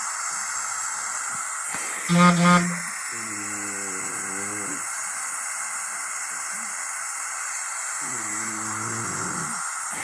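Steady hiss of a body-worn microphone. Over it, a person makes two low, drawn-out vocal sounds a few seconds apart, each falling in pitch, and a short, louder, higher-pitched vocal sound comes about two seconds in.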